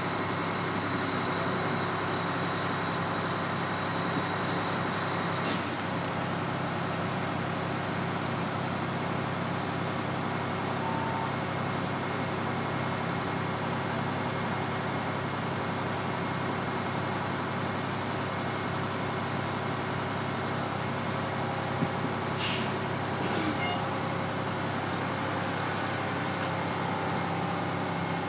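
Fire rescue truck's diesel engine running steadily, heard from inside the cab, with two brief sharp sounds, one about six seconds in and one near the end.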